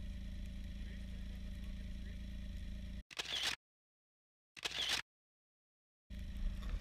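Snowmobile engine idling steadily. About three seconds in, the sound cuts to complete silence, broken by two short camera-shutter clicks about a second and a half apart, and the idle returns near the end.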